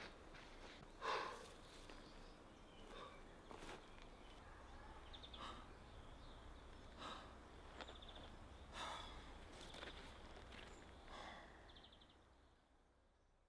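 Quiet outdoor ambience with a man's breaths and sighs at intervals, the strongest about a second in, and a few faint high chirps; it fades out near the end.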